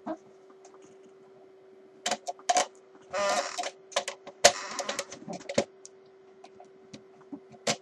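Irregular clicks and knocks as a grommet is pressed and worked into a guitar body, with a short scraping rasp about three seconds in. A faint steady hum runs underneath.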